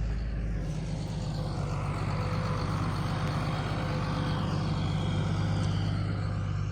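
Heavy vehicle engine running steadily at an even pitch.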